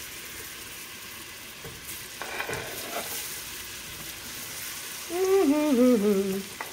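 Butter and oil sizzling in a skillet as chopped onion is scraped in off a wooden cutting board with a fork, with a few clicks of the fork on the board. Near the end a voice hums a short falling phrase without words, louder than the sizzle.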